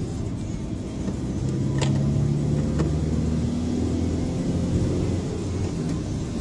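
Car driving, heard from inside: a steady low engine hum and road rumble, with two faint clicks about two and three seconds in.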